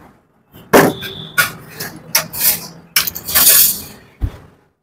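Irregular knocks, clicks and short scrapes of hands working on a motorcycle's front end, with a longer scraping rush about three seconds in and a dull thump near the end; the engine is not running.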